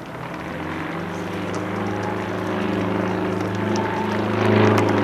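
Aircraft engine droning overhead, a steady low hum that grows louder as it comes closer.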